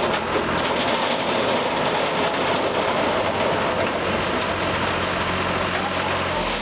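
New Holland tractor's diesel engine running steadily as it holds the hydraulically raised infielder bin, under a steady rushing rustle of cut sugarcane stalks sliding out of the tipped bin into a trailer.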